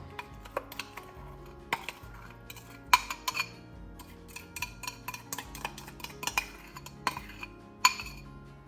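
A utensil repeatedly clinking and knocking against a bowl in irregular sharp strikes, as the butter, brown sugar and cinnamon filling is stirred.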